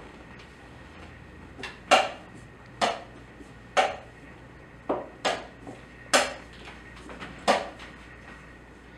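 Blitz chess moves: seven sharp knocks, about one a second, as wooden chess pieces are set down hard on a wooden board and the chess clock's button is slapped after each move.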